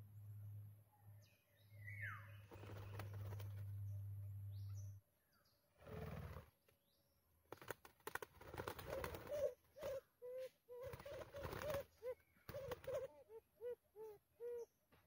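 White-eared brown doves flapping their wings around a perch, with a run of short low cooing notes that come faster toward the end. A steady low hum fills the first few seconds.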